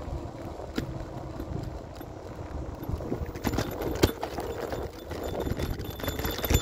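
Isinwheel S9 Max electric scooter rolling over pavement: a steady low rumble from the wheels with scattered knocks and rattles over bumps, the sharpest about four seconds in.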